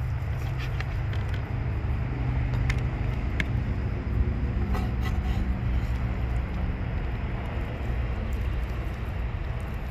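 A steady low rumble runs throughout, with a few light knocks of a cleaver on a plastic cutting board in the first half.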